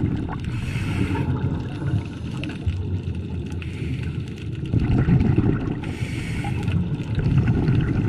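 Scuba diver breathing through a regulator, heard underwater: about one-second hisses of inhalation every couple of seconds, alternating with low bubbling rumbles of exhaled air.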